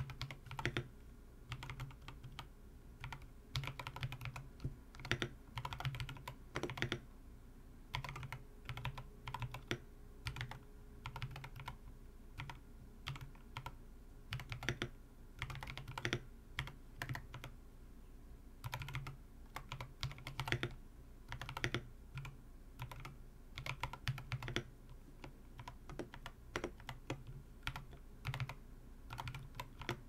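Typing on a Tofu60 mechanical keyboard with stock Drop Holy Panda tactile switches, a brass plate, plate and PCB foam, an acrylic case and MT3 keycaps: quick runs of keystrokes in bursts with short pauses between them.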